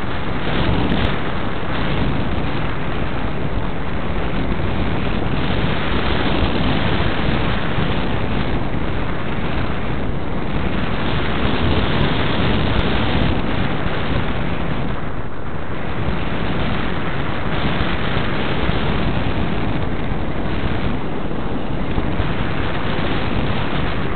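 Wind rushing steadily over the microphone of the onboard camera on a Parkzone Radian RC glider in flight, swelling and easing slightly in strength.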